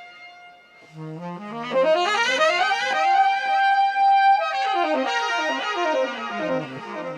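Saxophone and piano playing the instrumental opening of a slow song: after a brief lull, rising runs of notes climb to a long held note in the middle, then fall away again.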